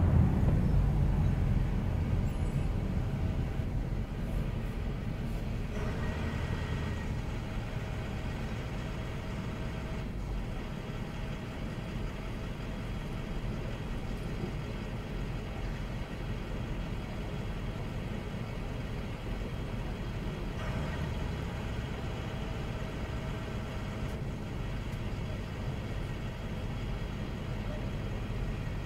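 City street traffic heard from a car moving slowly, then stopped in traffic: a steady low rumble of engines and tyres. It is loudest in the first couple of seconds, then settles to an even level.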